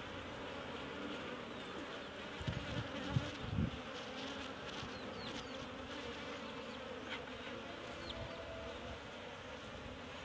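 A colony of Asian honey bees (Apis cerana) buzzing steadily around an opened wooden hive box, with a few dull knocks of the wooden frames being shifted about three seconds in.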